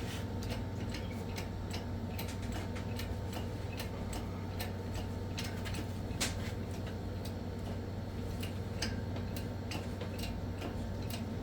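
Light metallic ticking and clicking from the engine hoist and its load-leveler rigging as the engine and transmission are let down and tilted, several clicks a second, irregular, over a steady low hum.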